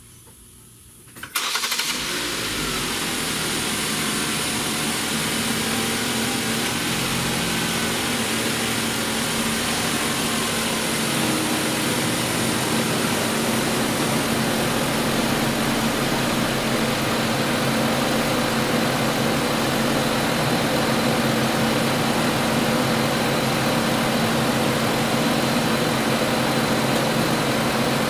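The 2008 Ford Focus's 2.0-litre four-cylinder engine starting about a second in, then idling steadily.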